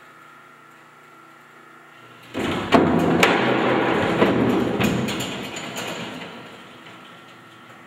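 A giant Jacob's ladder of plywood panels joined by straps cascading over: a sudden loud clatter of boards flipping and knocking against each other, with a few sharp knocks, starting about two seconds in and dying away over about four seconds.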